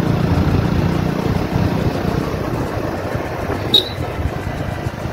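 Wind rushing over the microphone and a motorcycle running along at road speed. A short, sharp high chirp sounds once near the end.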